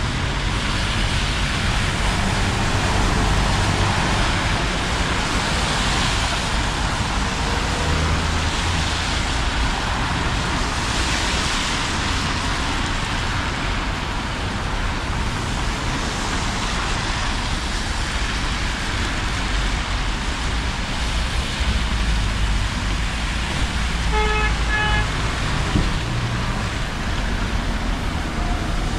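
City traffic passing on a rain-wet street, with engines rumbling and tyres hissing. A vehicle horn gives two short toots late on.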